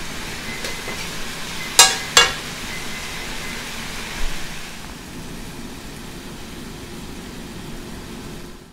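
Stir fry sizzling steadily in a hot stainless steel wok as it is stirred. Two sharp metal clinks of the utensil against the wok come about two seconds in, and a lighter knock a couple of seconds later. The sizzle eases a little after about five seconds.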